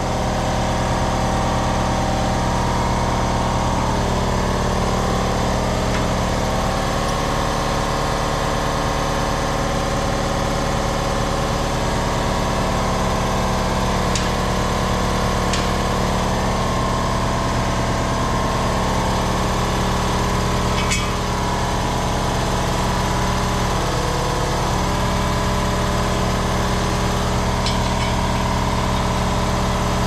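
An engine running steadily at idle, with a few faint clicks over it.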